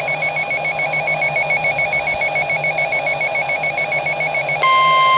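Emergency Alert System attention signalling for a severe thunderstorm warning. First comes a buzzy electronic tone warbling rapidly between two pitches. Over the last half second it gives way to a steady, louder single-pitch alarm tone that cuts off abruptly.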